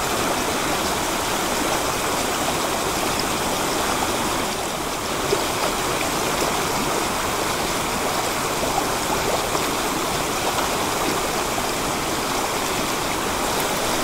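Mountain stream rushing over rocks, with a small waterfall pouring into a pool: a steady, even flow of water.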